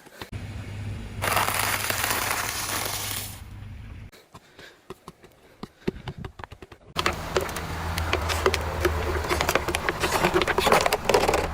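Objects crunching and crackling as a car's tyre rolls over and crushes them, with many sharp cracks over the car's low engine hum. The crackling is densest in the second half.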